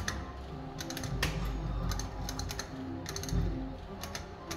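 Sizzling Hot 6 Extra Gold video slot machine played spin after spin: quick clusters of sharp clicks about once a second as the reels spin and stop, over the machine's steady electronic tones.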